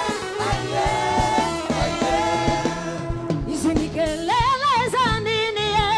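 Live gospel worship band playing, with long wavering, vibrato-laden melodic notes over bass and steady drum hits; one phrase rises about four seconds in. No words are sung in this stretch.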